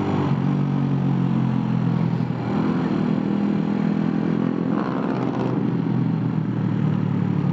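Suzuki Raider 150 carburetor model's single-cylinder engine running at a steady speed through an aftermarket Apido exhaust pipe, a loud, even exhaust note.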